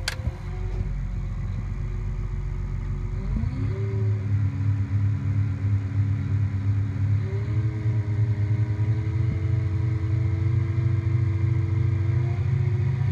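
A John Deere 8235R tractor's diesel engine running under load while pulling a disc harrow, heard from inside the cab. Its pitch rises in steps, about three and a half seconds in and again about seven seconds in.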